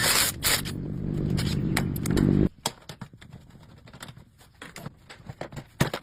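A low mechanical hum with a rattly rumble runs and cuts off abruptly about two and a half seconds in, followed by scattered light clicks and taps.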